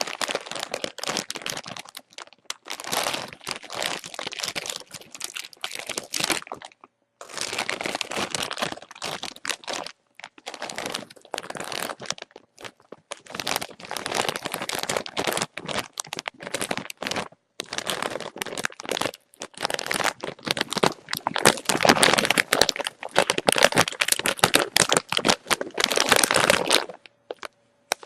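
Potato chips being eaten from a bag: crisp crunching and crinkling in bursts of a few seconds, with brief pauses between them.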